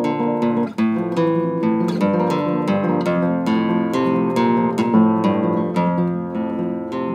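Classical guitar played solo, a quick run of plucked notes ringing over bass notes.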